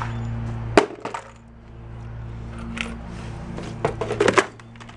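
Hard objects knocking and clattering as items are handled and set down: one sharp knock about a second in, then a quick cluster of clicks and light knocks near the end. A steady low hum runs underneath.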